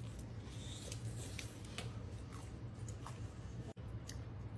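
Eating sounds: crisp little crunches and clicks of people biting and chewing toasted French-bread spaghetti sandwiches, scattered irregularly over a steady low hum.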